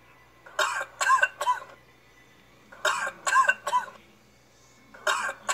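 A man's short vocal outbursts, three in quick succession, repeated about every two seconds in identical groups like a looped clip, played back through a computer's speaker.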